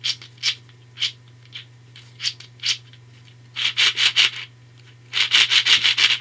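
A 3x3x7 cuboid twisty puzzle being turned by hand, its plastic layers scraping and clicking: kind of clicky. Single turns at first, then two quick runs of turns, one about halfway through and one near the end.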